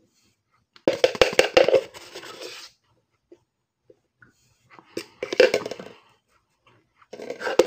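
Spoonfuls of packed cornstarch crunching and squeaking as they are bitten and chewed, in three crackly bursts a few seconds apart.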